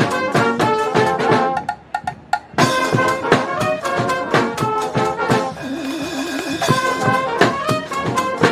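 Street brass band playing an up-tempo tune: trumpets and trombones over a steady drum beat. About two seconds in the band almost stops for a beat, then comes back in at full volume, with a wavering low brass note a little past the middle.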